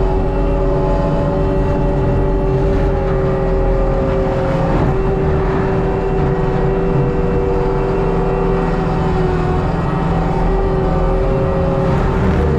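ASV RT-120 compact track loader's diesel engine running, its Fecon forestry mulching head spinning: a loud, steady drone with a steady whine over it, dipping slightly in pitch a couple of times.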